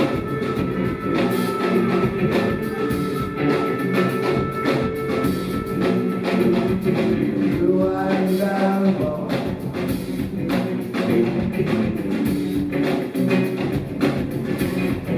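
Rock band playing live, an instrumental passage with a steady drum-kit beat under layered pitched parts.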